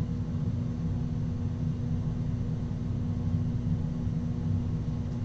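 Steady low hum with a constant tone, unchanging throughout: background room noise from a running machine or electrical equipment.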